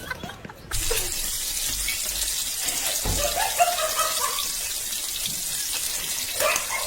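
Running water, a steady hiss like a tap running, starting suddenly under a second in.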